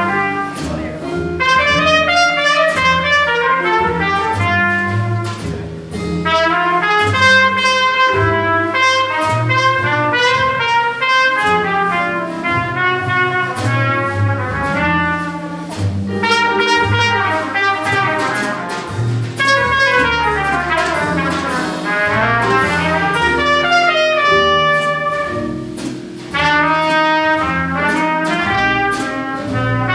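Live small-group jazz: a trumpet solos in quick, running lines over upright bass and drums with frequent cymbal strokes.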